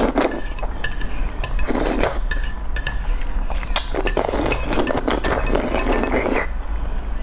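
Spicy noodles slurped off chopsticks in several noisy sucking draws. The longest lasts about two seconds and starts about four seconds in. Light clicks and clinks of chopsticks against the bowl come between them.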